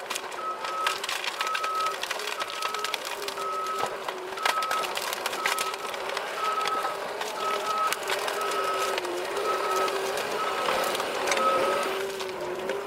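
Heavy forestry machine's diesel engine running while its reversing alarm beeps steadily, a little faster than once a second, stopping near the end, with scattered sharp knocks and cracks over it.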